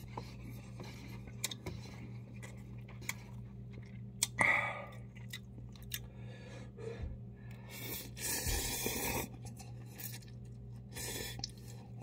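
Close-up sounds of a person eating instant cup noodles: chewing and small wet mouth clicks, with loud slurps of noodles about four seconds in and again around eight to nine seconds. A steady low hum runs underneath.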